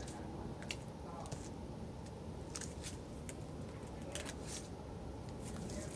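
Mule deer close to the microphone making irregular soft crunching clicks, a few to a second, typical of feeding, over a steady low hum.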